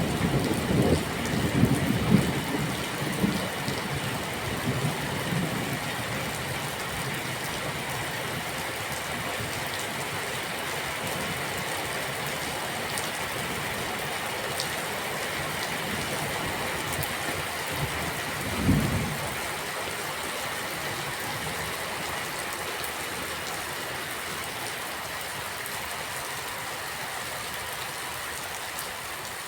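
Steady rain falling, with a roll of thunder rumbling low and dying away over the first few seconds, and one more brief low rumble about two-thirds of the way through.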